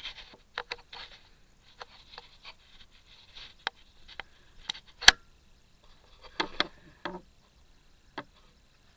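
Camera handling noise: scattered light clicks and taps, with one sharp click about five seconds in and a short cluster of knocks a little later.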